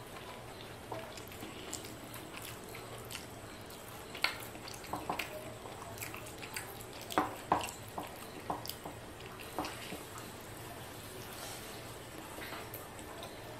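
Wet, sticky clicks and squelches of eating by hand: fingers mixing soft white rice and greens on a plate, along with chewing. The clicks are scattered, with a cluster of louder ones about halfway through.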